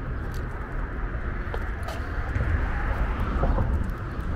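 Steady traffic noise from Interstate 95, an even wash of tyres and engines like white noise.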